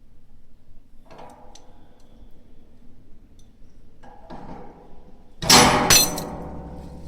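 Two loud clanks of hard objects striking, about half a second apart near the end, each ringing on briefly, after quieter knocks and rattles earlier.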